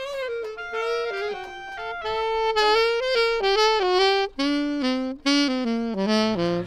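Saxophone playing a solo melody line of short, separate notes, which drops lower and steps downward in the last couple of seconds.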